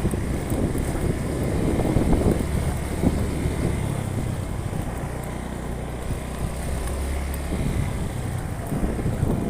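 A vehicle engine running steadily while driving along, with wind gusting on the microphone.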